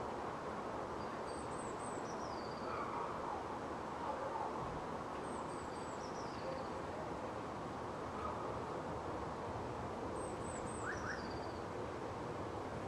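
Steady hum of a distant city, with a small songbird repeating the same short high phrase three times, a few thin notes and then a falling trill, about every four to five seconds.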